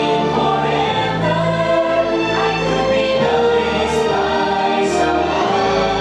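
Parade music with a choir singing: sustained sung notes that change pitch every second or so over a low bass line.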